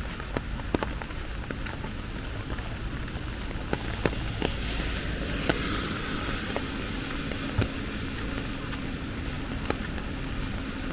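Steady rain falling, with scattered drops ticking sharply close by. About halfway through, a vehicle passes on the wet road, its tyres hissing, and a low hum lingers after it.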